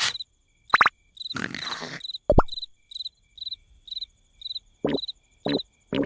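Cartoon night-time crickets chirping, about two chirps a second. Short cartoon sound effects break in between them, including a brief noisy burst about a second and a half in.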